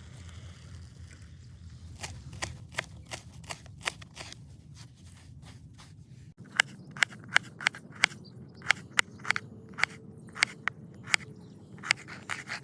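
A steady run of sharp knocks, about two or three a second, growing louder and more regular about six seconds in.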